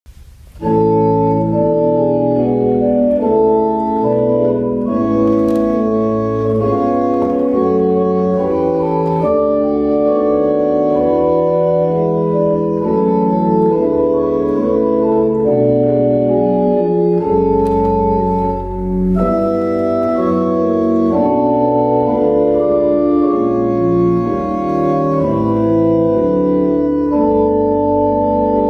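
Two-manual electronic church organ playing: sustained chords over low bass notes, changing steadily, starting about half a second in.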